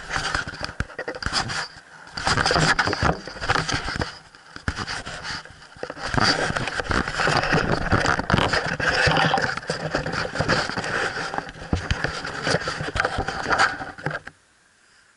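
Handling noise from fingers rubbing and scraping on a small wide-angle camera's body and microphone: a dense, uneven run of scrapes and knocks that stops suddenly near the end.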